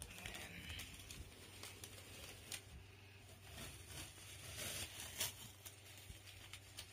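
Blue painter's tape being peeled off the wall and bunched in the hand: quiet crackling and tearing, with a few sharper crackles about five seconds in.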